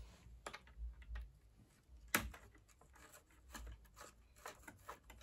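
Faint scattered clicks and small taps of a small screwdriver and plastic washing-machine door parts being handled, with one sharper click about two seconds in.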